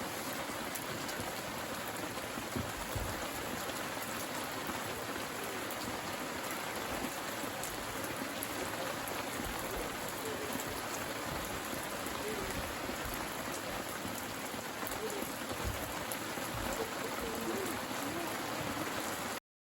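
Steady rain falling, an even hiss with scattered drop ticks, which stops abruptly near the end.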